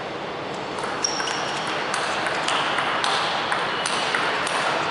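Table tennis ball clicking off the bats and the table during a serve and rally, in a steady run of sharp hits about two a second. A short high squeak comes about a second in.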